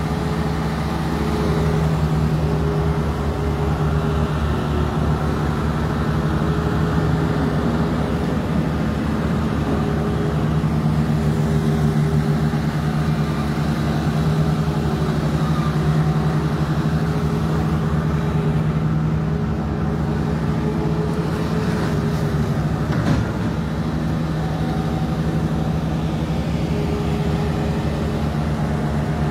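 Engine of a heavy vehicle running steadily close by, with one short clank about 23 seconds in.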